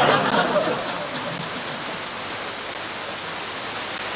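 Steady rushing of running water, louder in the first second and then even.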